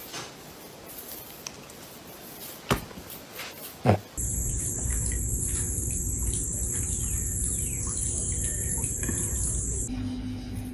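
Outdoor chorus of insects and birds: a steady high-pitched buzz with scattered chirps over a low rumble, starting about four seconds in and stopping abruptly near the end.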